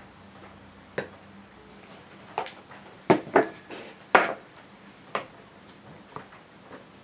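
Hand-held hamburger patty press being handled on a wooden table: a series of separate sharp knocks and clatters as its parts are set down and pushed together, the loudest a little after the middle.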